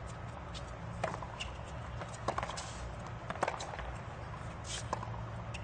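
Tennis rally on a hard court: rackets striking the ball back and forth, sharp knocks about every second or so, mixed with ball bounces and players' footsteps.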